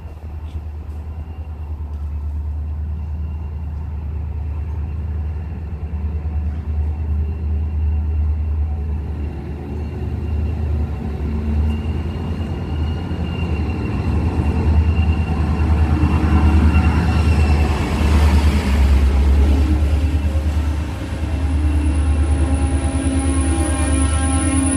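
A DSB ME-class diesel locomotive hauling double-deck coaches draws into the platform. Its deep rumble grows louder as it comes closer and passes. Near the end a steady high-pitched squeal sets in.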